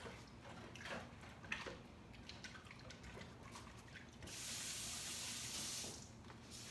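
Kitchen sink tap turned on, running steadily for about two seconds and then shut off, after a few light knocks and clicks.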